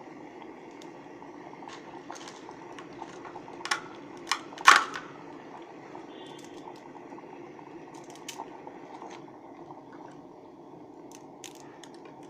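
Water boiling steadily in an electric kettle, a low, even bubbling. A few sharp clicks and knocks come about three to five seconds in, the loudest just before five seconds, with a few lighter clicks later.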